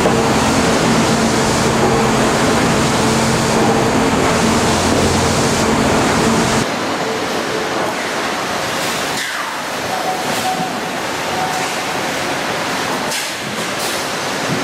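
Sawmill machinery running: a steady drone with several held tones, which changes abruptly about seven seconds in to a thinner, hissing machine noise with a few short knocks.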